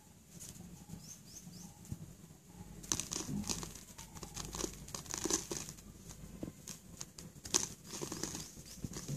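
Fingers crushing and rubbing balls of slate pencil into powder on a sheet of paper: gritty crumbling and scratching with the paper crinkling. It starts about three seconds in and comes in irregular bursts.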